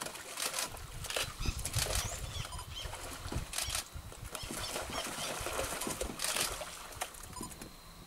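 Giant otters splashing and scuffling in shallow water, a series of short noisy splashes with a few brief high squeaks, over an uneven low rumble.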